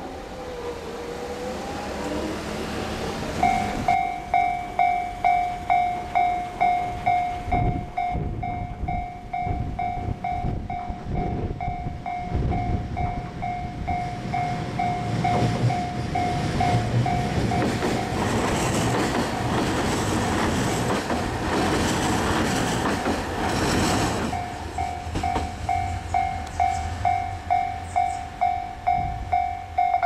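Japanese level-crossing warning bell ringing, an electronic two-tone ding about twice a second, starting a few seconds in. A diesel railcar runs past over the rails, loudest in the middle, where it partly drowns the bell.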